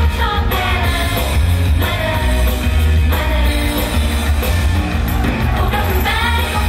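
Live idol-pop song playing loud over the stage sound system, with a girl group singing over a backing track heavy in bass.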